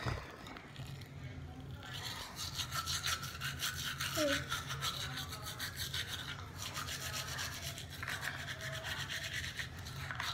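Toothbrush scrubbing back and forth against teeth in quick, rhythmic strokes, close to the microphone, starting about two seconds in with a couple of brief pauses.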